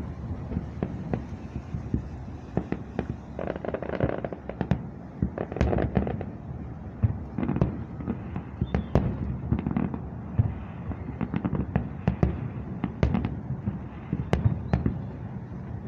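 Fireworks going off in quick, irregular succession: many sharp bangs and pops over a continuous low rumble.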